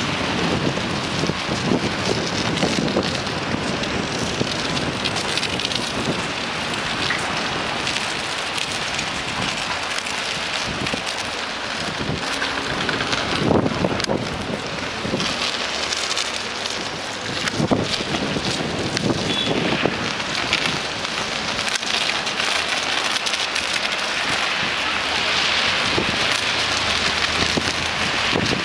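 Street traffic: a steady hiss of tyres on a wet, slushy road as trolleybuses and cars pass, with a couple of sharp cracks about halfway through.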